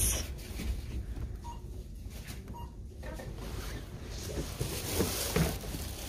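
Shop background: a steady low hum with two short electronic beeps about a second and a half and two and a half seconds in, and faint voices near the end.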